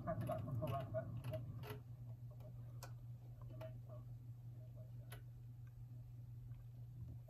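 A car's turn indicator ticking inside the cabin over a steady low engine and road hum, signalling the turn.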